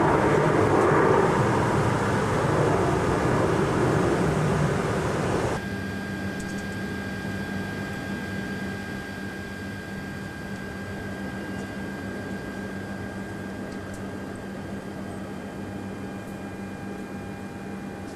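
Steady aircraft cabin noise inside a Douglas DC-8-62: a loud even rushing that cuts off suddenly about five and a half seconds in, leaving a quieter steady hum with a thin high tone.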